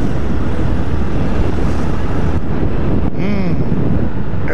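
Heavy wind rush on the helmet microphone of a Honda CB 250F Twister motorcycle cruising at about 67 km/h, with its single-cylinder engine running steadily underneath.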